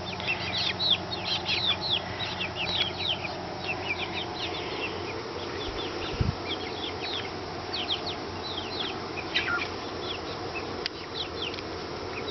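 Chickens giving many short, high, falling peeps, several a second, while pecking at ants. A single dull thump about six seconds in.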